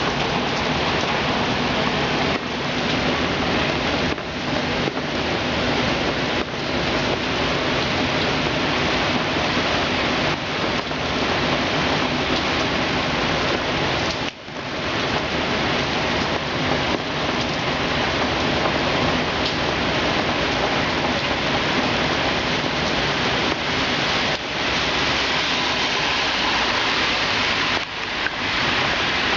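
Heavy hurricane rain falling steadily, a dense even hiss, with a brief sudden lull a little past halfway.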